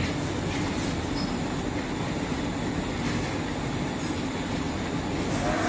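Industrial fabric inspection machine running, with a steady mechanical rumble and hum from its motor and rollers as the cloth feeds through, and a few faint light clicks.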